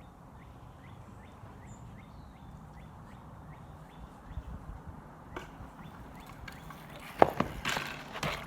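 SE Lo-Ripper bike being ridden: faint, even ticking about three times a second, then about seven seconds in a sharp, loud knock followed by a short clattering scrape.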